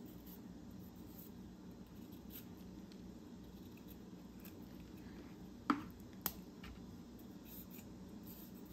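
Kitchen knife cutting through broccoli stems to split off florets: faint crisp snips, with two sharper clicks a little past halfway.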